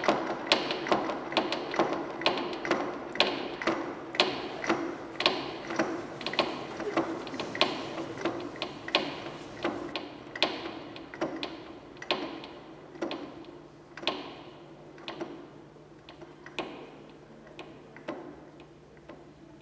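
An old cinema projector's mechanism clicking in an even rhythm over a low steady hum, about two clicks a second at first, slowing to about one a second and fading away as it runs down.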